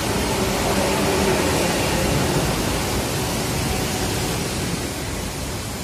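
Trenord double-deck electric regional train running past close by at the platform: a steady rush of wheel and air noise that eases slightly as the last carriage goes by.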